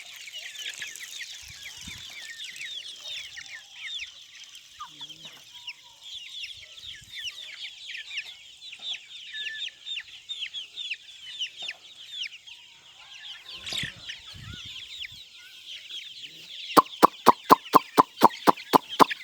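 A flock of laying hens clucking and chattering together, a dense continuous din of many overlapping calls. Near the end a loud, rapid run of sharp knocks, about five a second, cuts in over it.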